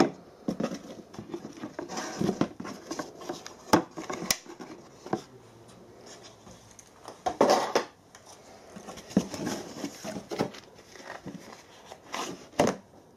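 Handling noises: a vernier caliper laid into its wooden case with light knocks and clicks, then cardboard box flaps folded and rustled over the case. The loudest is a scraping rustle of cardboard about seven and a half seconds in, with a sharp knock near the end.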